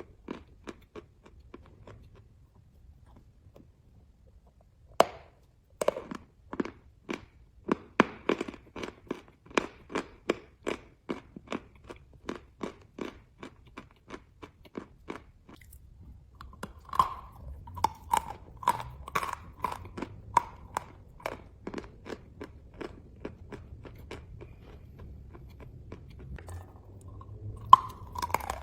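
Chalk being bitten and chewed close to the microphone: a few light clicks, a sharp bite about five seconds in, then steady crunching chews about two to three a second.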